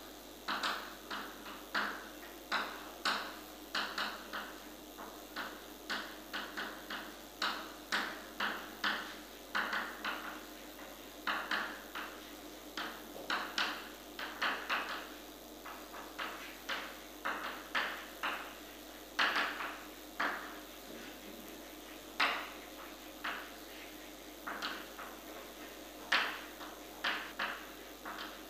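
Chalk writing on a chalkboard: quick, uneven taps and short scrapes, several a second, with a few brief pauses between words.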